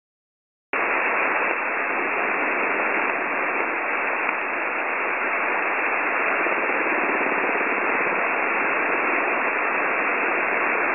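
Shortwave radio hiss from a WebSDR receiver tuned to the S06s numbers station on 9270 kHz. The hiss cuts in suddenly under a second in and then runs steady and thin, like static heard through a telephone, with a couple of faint clicks in the middle.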